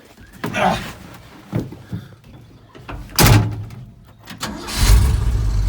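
A few light knocks, then a truck door shutting with a heavy clunk about three seconds in. Near the end the 1978 Ford F-350's 460 V8 starts and settles into a steady idle.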